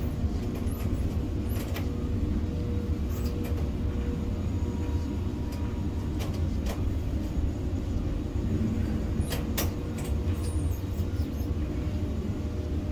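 Steady low machinery hum heard inside a ship-to-shore container crane's operator cab, with a few short clicks scattered through it, two of them close together about nine and a half seconds in.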